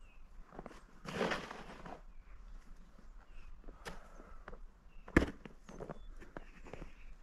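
A snow shovel scraping through snow about a second in, then footsteps crunching in snow. One sharp knock, the loudest sound, comes about five seconds in.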